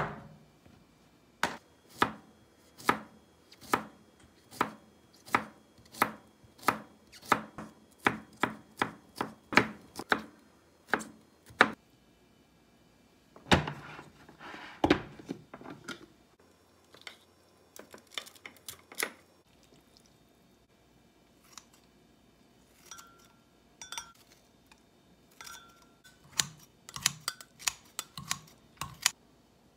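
Knife chopping on a wooden cutting board, about twenty even strokes at roughly two a second, stopping about twelve seconds in. Then comes a clatter as a snap-lock lid is unclipped from a glass food container, followed near the end by kitchen scissors snipping kimchi, with light clinks on a glass mug.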